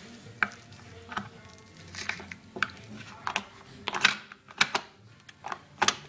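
A string of sharp clicks and knocks, about eight of them, the loudest about four seconds in, from handling a Whirlpool dishwasher while loading detergent into it.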